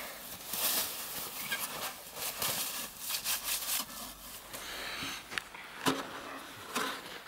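Irregular scraping and crunching in snow, in short bursts, as a child on a red plastic snow saucer slides to a stop and tumbles off it. There is a sharp knock about six seconds in.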